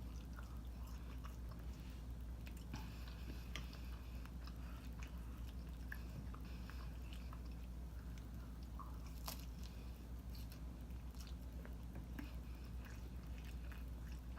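Close-up chewing and biting of a mouthful of Trader Joe's Mandarin Orange Chicken and brown rice, many small wet clicks and soft crunches, over a steady low hum.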